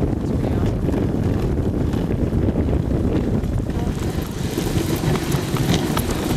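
Dogsled moving over a bumpy snow trail: a steady low rumble of wind buffeting the microphone and the runners on the snow, with scattered scrapes and clicks in the second half.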